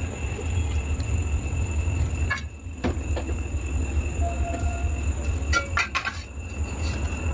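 A steady low mechanical hum with a thin high whine, like a running kitchen appliance or fan. A few light clinks and taps of steel utensils come a couple of seconds in and again about two seconds later.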